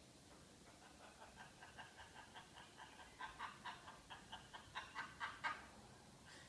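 Macaw mimicking human laughter: a quick run of 'ha-ha' syllables, about four or five a second, growing louder and then stopping.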